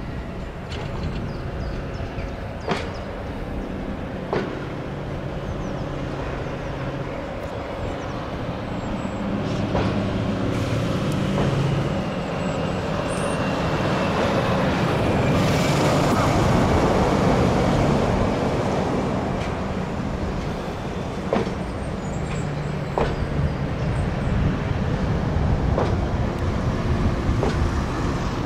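A diesel train passing, its engine hum and wheel noise building to a peak about two-thirds of the way through and then easing off, with scattered sharp clicks.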